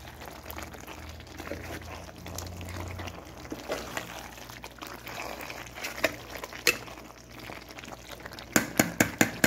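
Thick spinach-and-potato curry bubbling and squelching in a pot as a spoon stirs it, with scattered small clicks. Near the end comes a quick run of about five sharp knocks, the spoon striking the pot.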